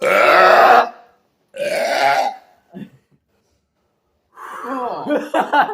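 Loud burps from gulping fizzy drinks: a long burp right at the start, a second one about a second and a half in, and a longer, broken burp near the end.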